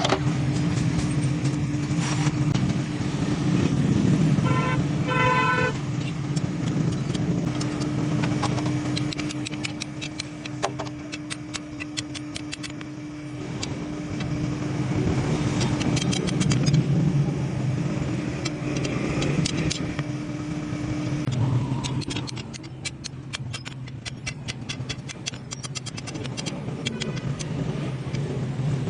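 A steady machine hum that stops about 21 seconds in, under many quick clicks and taps, with a short honk twice about five seconds in.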